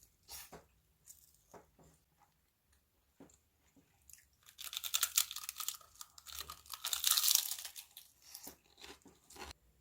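A cat crunching dry treats: scattered crisp bites, then a dense spell of loud crunching and crackling in the middle, tapering to a few last crunches near the end.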